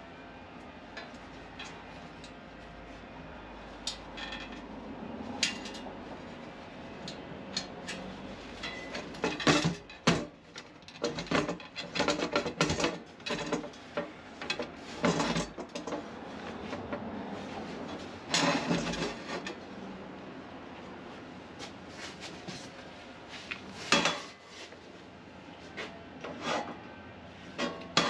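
Heavy 2.3 mm steel plates of a homemade fire pit being handled, clanking and scraping against each other in irregular knocks, with a few louder clangs around the middle of the stretch.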